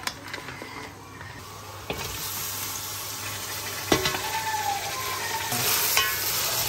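Tomato wedges and fried onions sizzling in a metal cooking pot as they are stirred with a wooden spoon, the first stage of a chicken biryani. The sizzling starts about two seconds in and grows louder, with a couple of sharp knocks of the spoon against the pot.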